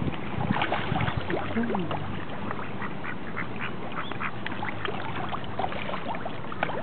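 Water splashing and slapping as a dense crowd of feeding turtles and carp churn at the surface, with ducks quacking.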